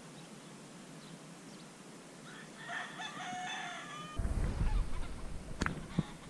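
A rooster crowing once, a call of about a second and a half, starting about two and a half seconds in. It is followed by a low rumble and two sharp clicks near the end.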